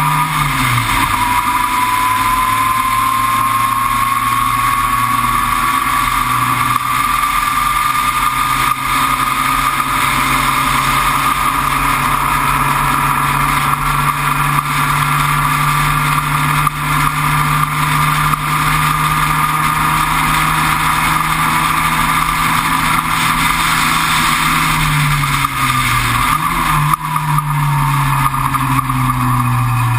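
Onboard sound of the Entropy sports racer's engine at speed on track. The engine note drops right at the start, then climbs and holds high for most of the time, with a thin whine slowly rising in pitch. About 25 seconds in it falls in steps, as on downshifts under braking, then climbs again and drops once more near the end.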